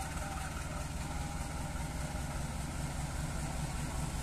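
Diesel-electric locomotive engine running with a steady low rumble as it slowly hauls a passenger train along the track.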